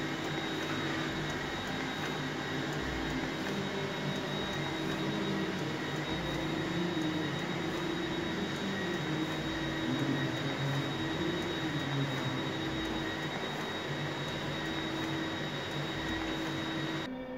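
Epson SureColor T7200 large-format inkjet printer running while printing a sheet of photo silk paper: a steady mechanical hum and whir with a thin high whine, the sheet feeding out as it prints. The sound drops away just before the end.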